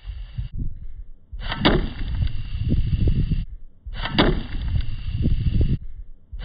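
Two sharp cracks about two and a half seconds apart, each an arrow being shot from a homemade arrow slingshot. Low rumbling runs underneath.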